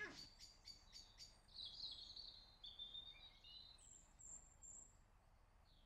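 Faint birdsong: a small bird's chirping notes, with a few thin, very high notes near the end. A quick run of about six clicks comes in the first second.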